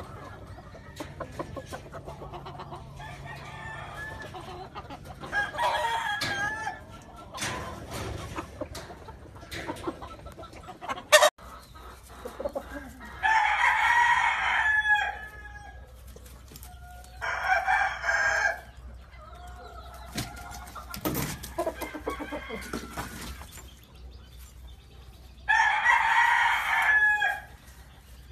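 Roosters crowing: three loud crows of a second and a half to two seconds each, the last near the end, over scattered softer clucking and small clicks, with one sharp click shortly before the first crow.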